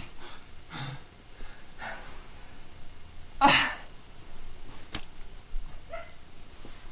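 A man's heavy, strained breathing during a seizure, broken about three and a half seconds in by one short, explosive vocal gasp that falls in pitch. A single sharp click comes about a second and a half later.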